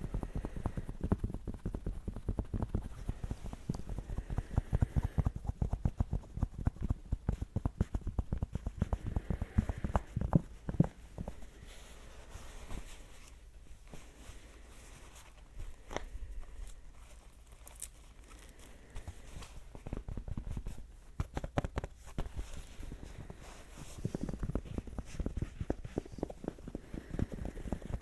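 ASMR tapping: rapid, light fingertip taps close to the microphone in dense flurries, thinning out to sparser, quieter taps through the middle before picking up again near the end.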